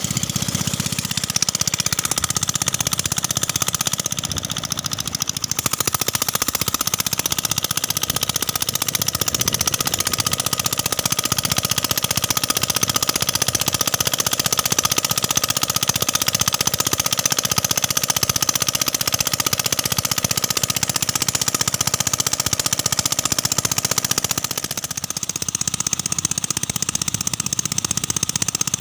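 Worn-out 7 hp single-cylinder diesel engine running steadily with a rapid, even knock. The sound eases briefly about four seconds in and again near the end.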